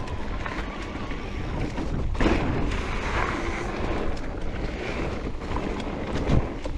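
Mountain bike riding down a dirt trail: wind buffeting the camera microphone over the rumble of tyres, with frequent rattles and knocks from the bike and a heavier thud near the end.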